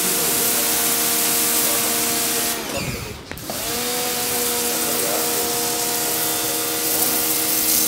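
Pressure washer running while its jet sprays: a steady motor hum over the hiss of water. About two and a half seconds in, the motor winds down and stops for about a second, then starts again and spins back up to speed.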